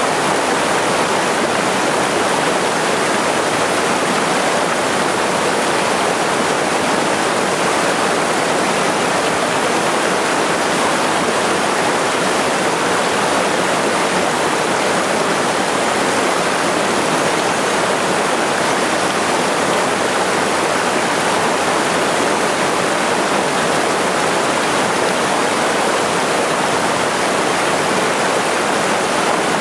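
A small mountain-stream waterfall pouring into a pool: a steady, unbroken rush of water.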